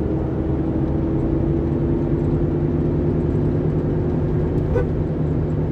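Steady engine hum and road noise inside the cabin of a moving car cruising at an even speed.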